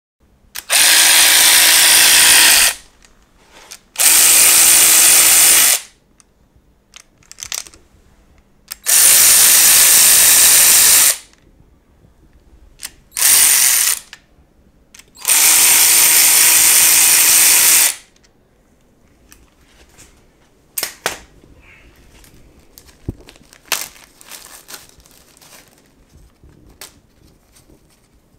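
Power tool run in five bursts of about one to three seconds each with a steady whine, backing fasteners out of an engine being torn down. A few light clicks and clinks of hardware follow near the end.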